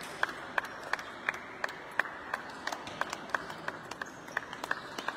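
Table tennis ball clicking against table and bats in an even run of sharp ticks, about three a second, over a steady hubbub of a large sports hall.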